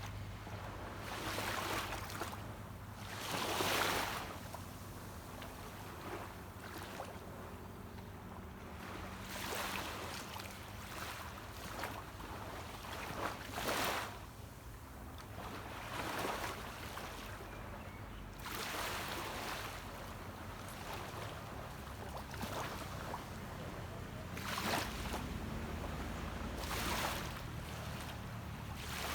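Small waves washing onto a beach, each a short rushing surge a few seconds apart, over the low steady hum of a distant boat's engine.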